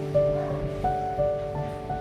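Soft instrumental background music, with held notes that change about every half second to second.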